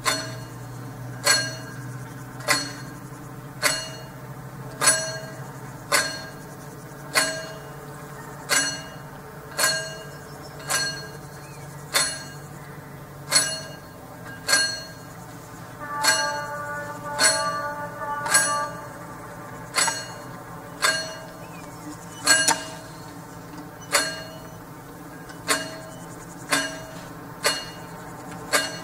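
Level-crossing warning bell striking single ringing clangs about once every 1.2 seconds, warning that the barriers are about to come down. A denser ringing joins in for a couple of seconds past the middle.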